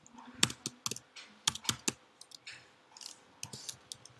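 Typing on a computer keyboard: irregular key clicks, the loudest coming in a quick cluster in the first half.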